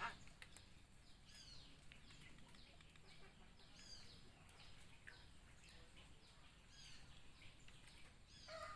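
Faint bird chirps: short, high notes falling in pitch, repeated about twice a second. A louder call begins right at the end.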